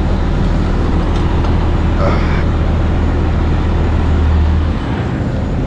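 Diesel engine of a Peterbilt 75-ton rotator tow truck running steadily with a low drone; the drone drops briefly near the end.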